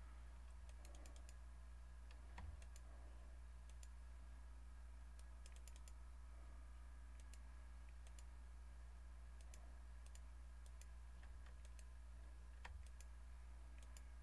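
Faint, scattered clicks of a computer mouse and keyboard over a steady low electrical hum; otherwise near silence.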